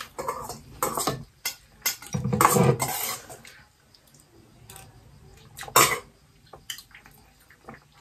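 Forks and spoons clinking and scraping against metal plates during a meal, with a sharp clink a little before the six-second mark.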